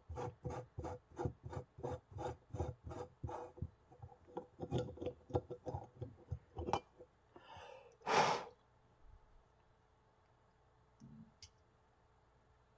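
Mini backpacking stove being unscrewed from its gas canister: a run of even rasping scrapes from the threads, about three a second, which turn looser and irregular, then one short, loud hiss about eight seconds in.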